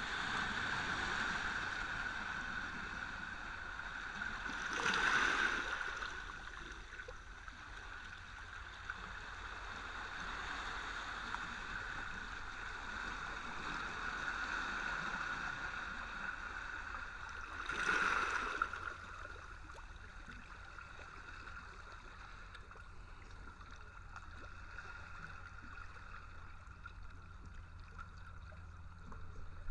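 Small sea waves lapping and washing over shore rocks in a steady hiss, with two louder wash-ins, about five seconds in and again about eighteen seconds in.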